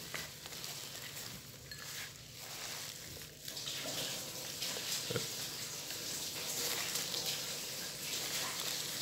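Hands tossing a salad of fresh herb leaves and shredded chicken on a banana leaf: a steady rustling of leaves being turned over and mixed.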